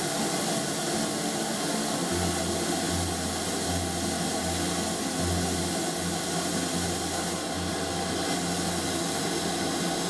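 Standing steam locomotive letting off steam: a steady, loud hiss, with a low, uneven pulsing underneath from about two seconds in.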